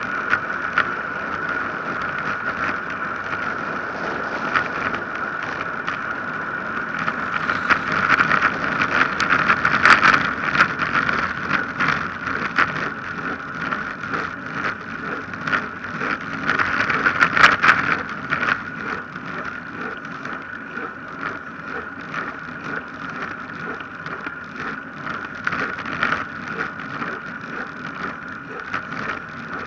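Wind rushing over an action camera's microphone on a downhill bicycle ride, with tyre noise and crackling rattles from the rough asphalt. It swells twice, about a third of the way in and a little past halfway, then eases off.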